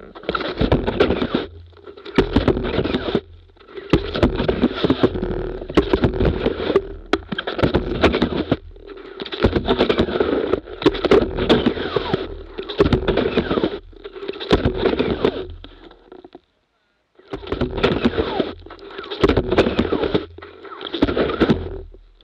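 Touring ski with a climbing skin sliding forward over crusty snow, close to a ski-mounted camera: a scraping swish with each stride, about one every one and a half to two seconds, with a brief pause about three quarters of the way through.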